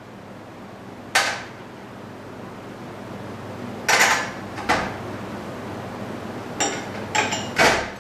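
Small glass seasoning dishes and a metal spoon clinking against a tray and a bowl as seasonings are added: a few separate clinks, then a quick cluster of three near the end, some ringing briefly.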